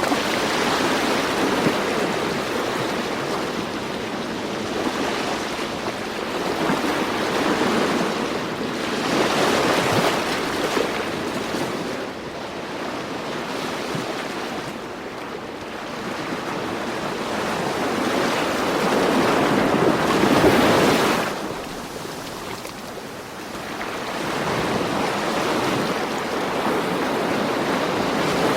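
Ocean waves washing in, swelling and falling back about every ten seconds, with the biggest surge about twenty seconds in.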